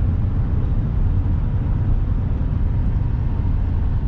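Steady road and engine rumble inside a moving pickup truck's cab at highway speed.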